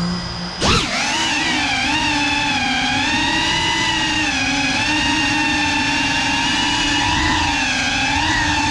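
GEPRC Cinelog 35 cinewhoop's motors and ducted propellers spinning up from idle, with a quick rise in pitch about half a second in. After that comes a steady, loud whine of several tones together that wavers slightly in pitch as the throttle moves in flight.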